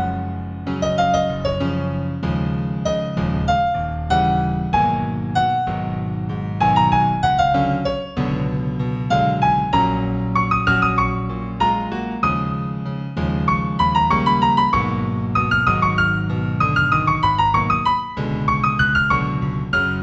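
New-age instrumental music in F major: a keyboard melody of struck notes over a repeating low accompaniment.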